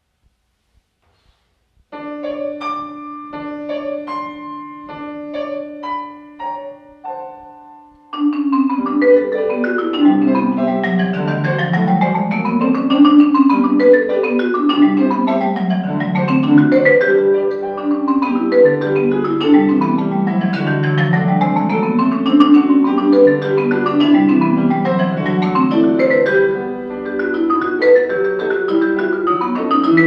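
Marimba played with mallets, with piano accompaniment: a quiet opening of sparse struck notes over a held low tone, then about eight seconds in, fast rippling runs that sweep up and down the marimba's range, much louder.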